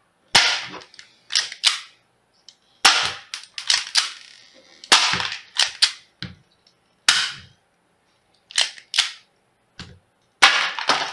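Spring-powered airsoft Taurus PT24/7 pistol being cocked and fired again and again: sharp clacks of the slide being pulled back, and the snap of the spring with each shot, often in close pairs, spaced unevenly about a second or so apart.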